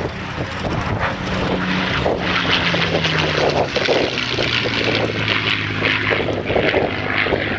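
Piston-engined propeller aeroplane flying past, its engine note dropping in pitch as it goes by, with wind buffeting the microphone.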